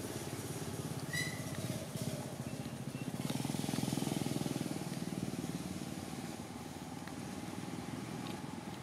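A small engine running steadily and swelling a little louder in the middle, with a short high squeak about a second in.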